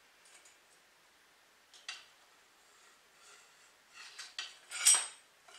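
Light metallic clinks and taps of outboard motor parts being handled and fitted together: a couple of clicks about two seconds in, then a quick run of clinks, the loudest near the end.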